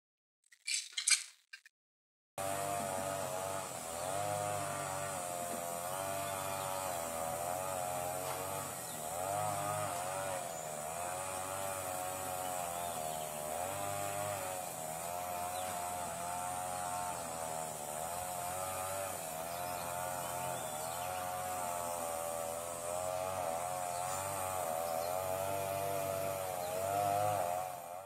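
A brief sharp burst about a second in, then a continuous buzzing drone that starts about two seconds in and wavers up and down in pitch roughly every second and a half.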